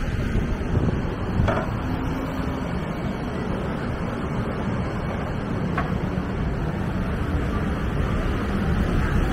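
Busy city street traffic: a steady low rumble of passing vehicles, with wind buffeting the microphone.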